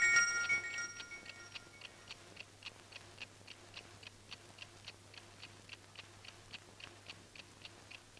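Table alarm clock ticking steadily, about three ticks a second. A bright ringing chime fades out over the first two seconds.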